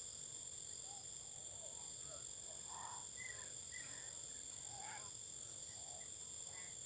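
Outdoor insect chorus of crickets: a steady, high-pitched drone at several pitches, with scattered short chirping calls from small animals among it.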